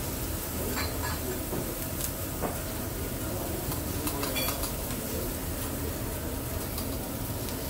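Steady hibachi restaurant din: a low rumble and hiss with indistinct voices in the background and a few light clicks like utensils.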